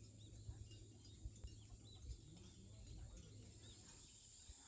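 Near silence: faint outdoor ambience with scattered distant bird chirps and a steady high hiss.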